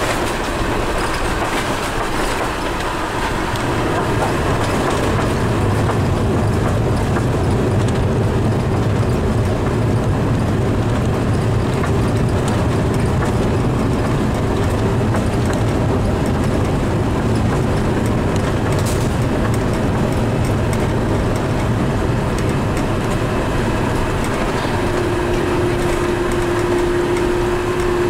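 Cabin noise of an Airbus A380 taxiing: a steady engine hum with a rolling rumble, growing louder about four seconds in. A steady tone sounds for a few seconds near the end.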